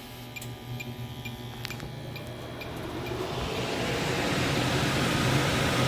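Kitchen range hood exhaust fan switched on over a preheating gas oven: its rushing noise rises from about two seconds in and then runs steadily.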